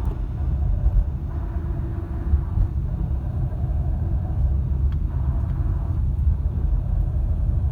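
A car being driven, with a steady low rumble of engine and road. It is a test drive to check for noise from the gearbox.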